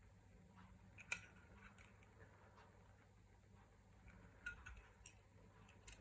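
Near silence broken by a few faint, sharp clicks and taps: one about a second in and several more near the end.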